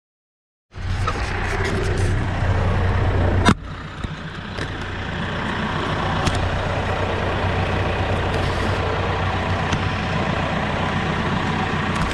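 Kioti RX7320 tractor's diesel engine running close by, cutting in after a moment of silence, with a sharp knock from a hand handling the mounted GoPro about three and a half seconds in. The low engine drone is weaker after the knock.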